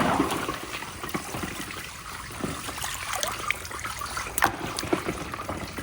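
Water trickling steadily along a marble run's water-flow channel, with a few scattered sharp clicks of glass marbles knocking on the course.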